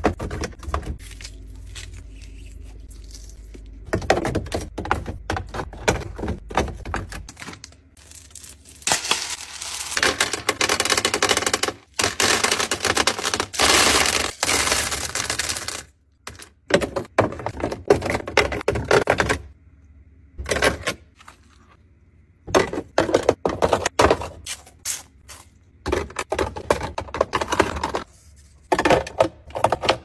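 Frozen cubes and ice clinking and clattering into clear plastic freezer bins, set in with metal tongs: a run of sharp clicks and knocks, with a longer stretch of dense, continuous rattling near the middle.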